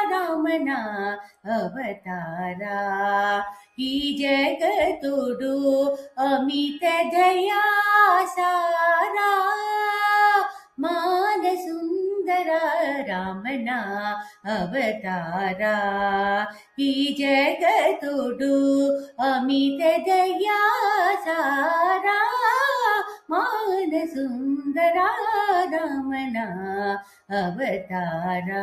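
A woman singing solo without accompaniment in Carnatic style, long melodic phrases with sliding, ornamented notes, broken every few seconds by short pauses for breath.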